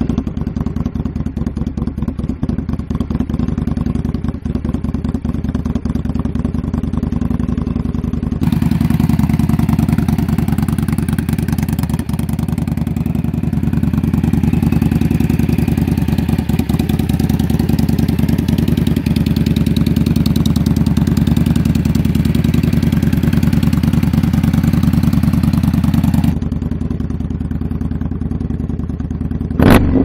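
The V-twin engine of a 2018 Indian Scout Bobber idles steadily through a Freedom Performance Combat 2-into-1 exhaust. The middle stretch is recorded through a phone's microphone and sounds brighter. A short, louder blip comes near the end.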